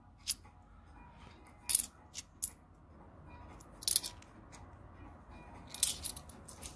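Bimetallic 2-euro coins clinking sharply against one another and against a wooden tabletop as they are handled and set down. There are several separate metallic clicks with a brief ring, grouped in a few clusters.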